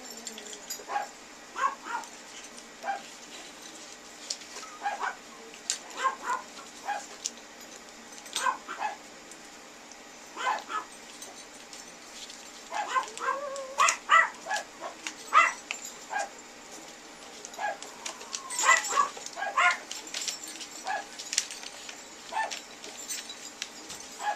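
Toy poodle puppies yipping and whimpering in short, scattered high calls, busiest about halfway through and again near the end, with light clicks between them.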